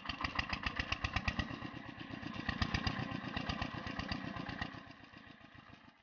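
8 hp single-cylinder diesel engine on an irrigation water pump catching and running up to speed with a fast, even chug of exhaust puffs. The sound fades away in the last second.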